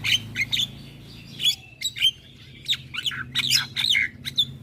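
Javan myna chattering: a rapid run of short, harsh whistles and squawks, with a brief lull about a second in before the calling resumes.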